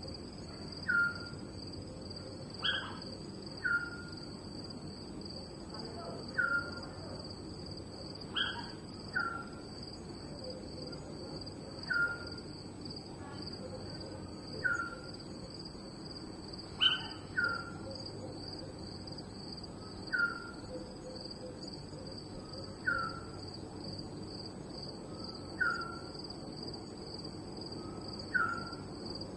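Night soundscape: a steady, high-pitched insect chorus runs throughout, with a short falling chirp call from another animal repeating about every two to three seconds, sometimes in pairs.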